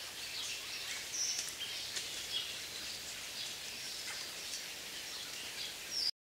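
Forest ambience: scattered short bird chirps and calls over a steady high hiss, cutting off abruptly near the end.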